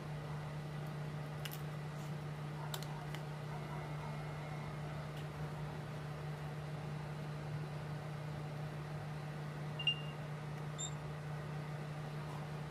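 A steady low hum with a few faint clicks and taps as the opened phone is handled and moved about on the work mat; one short sharp click about ten seconds in.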